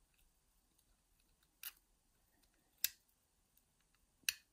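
Three sharp metal clicks, a little over a second apart, from a wire pick working the levers of a five-lever mortice lock during picking.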